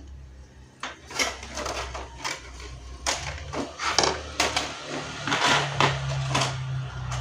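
Irregular clicks and taps of a laptop's plastic casing and parts being handled and fitted.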